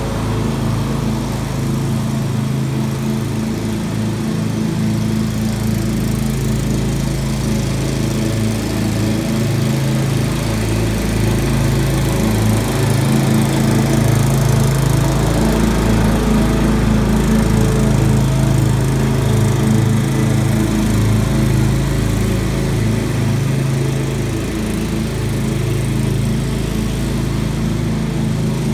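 Walk-behind lawn mower engine running steadily while mowing, getting louder as the mower passes close about halfway through, then easing off.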